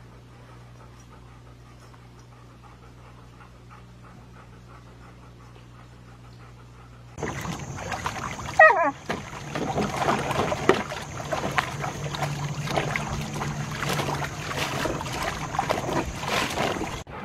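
A low steady hum for about seven seconds, then a husky pawing and splashing at the water in a plastic kiddie pool, rapid irregular splashes, with a short falling whine about nine seconds in.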